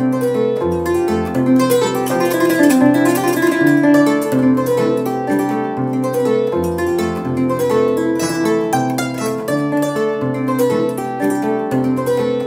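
Kora, the West African calabash bridge-harp, played solo: its plucked strings ring in a repeating low bass pattern under quick melodic runs.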